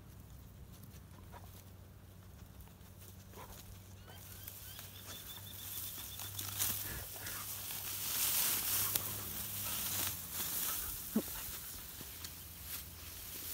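Dry, ripe wheat stalks rustling and crackling as a German Shorthaired Pointer pushes through them. It starts about four seconds in and is loudest in the middle, over a faint steady low hum.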